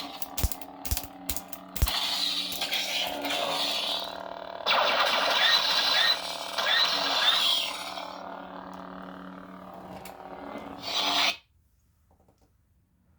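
Lightsaber hilt's sound board playing its Count Dooku sound font. A steady blade hum runs under sharp clash-like cracks in the first couple of seconds and a louder swing effect from about five seconds in. The sound then cuts off abruptly after about eleven seconds as the blade shuts off.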